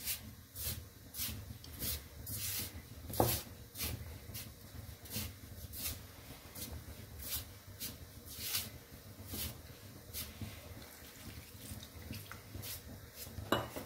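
Rice flour being mixed by hand into dough with a little water and oil: a steady series of soft rustling, rubbing strokes, about one and a half a second.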